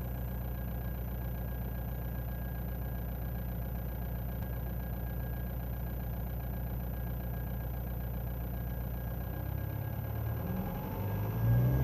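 Ford Mondeo 2.0 TDDi four-cylinder turbodiesel idling with a steady high whine that does not follow engine speed. Near the end the engine is revved. The whine is a cold-engine noise that goes away once the car warms up.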